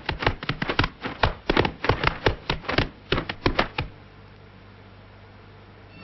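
Fists striking swinging training balls hung on ropes in a rapid, irregular string of sharp smacks, about five a second. The smacks stop about four seconds in, leaving a faint low hum.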